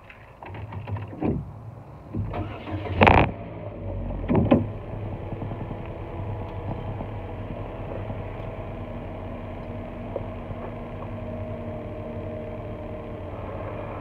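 Car engine cranked and started, firing with two loud bursts about three and four and a half seconds in, then settling into a steady idle.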